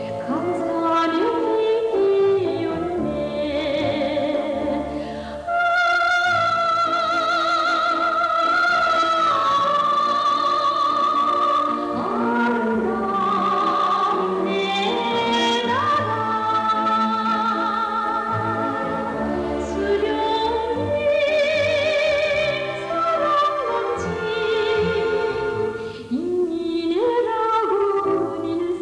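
Orchestral film soundtrack music with a singing voice holding long notes with a wide vibrato, the melody stepping between sustained pitches.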